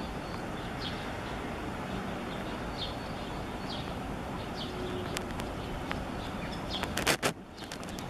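Common myna giving a few short, high chirps, spaced a second or so apart, over a steady background rumble, with a louder harsh burst about seven seconds in.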